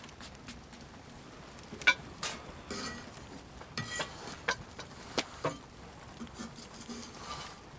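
Metal cooking utensils scraping and clinking against metal cookware, a spoon in a pot and a spatula turning flatbread on a griddle, in scattered knocks and short scrapes that begin about two seconds in.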